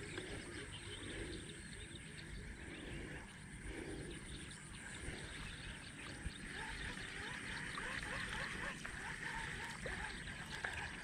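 Wetland wildlife chorus: many small overlapping chirps and trills of calling animals keep up steadily, with an occasional faint click.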